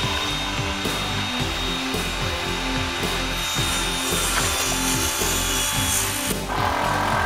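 Background music with a steady rhythm of changing low notes, possibly mixed with work-site noise.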